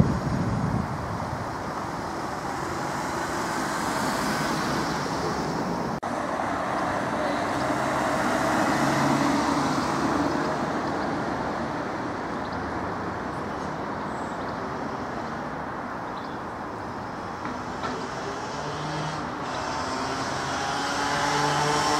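Road traffic on a town street: cars passing, the tyre and engine noise swelling and fading. Near the end a vehicle engine's hum draws closer and gets louder.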